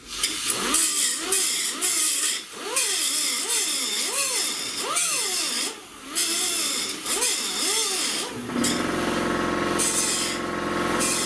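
Power tool working the metal of a car body, its pitch rising and falling over and over as it bites and eases off, then running steadier from about eight and a half seconds in.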